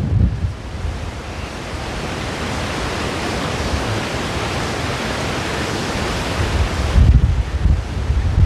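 Strong wind blowing, a steady rushing hiss with gusts buffeting the microphone in low rumbles at the start and again near the end.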